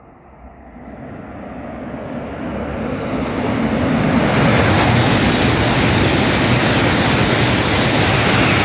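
Shinkansen bullet train (the coupled Yamabiko/Tsubasa) passing a station platform at speed. A rushing noise builds over the first four seconds as it approaches, then holds loud and steady as the cars go by.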